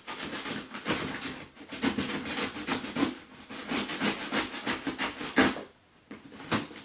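Utility knife slicing through a cardboard box: a rapid run of rasping scrapes that stops about five and a half seconds in, then a few lighter scrapes near the end.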